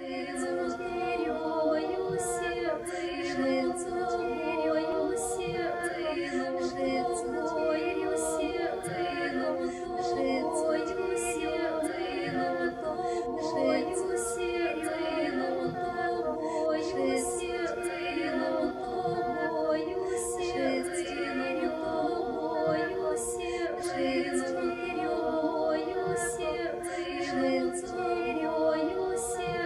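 Unaccompanied choral singing: several voices holding and shifting sustained chords, with short hissing consonant sounds recurring every second or two.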